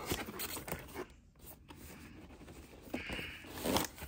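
Scraping, rubbing and small clicks as a toy's box and its packaging are worked open, with a short hiss of rubbing about three seconds in and a louder scrape just before the end.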